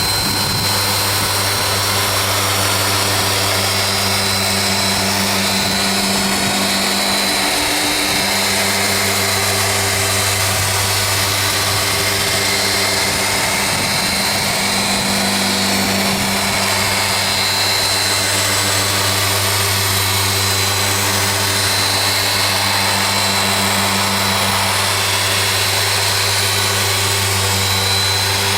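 Dual-action (DA) polisher running steadily at a high speed setting, buffing correction compound into a clouded plastic headlight lens. Its hum shifts slightly a couple of times.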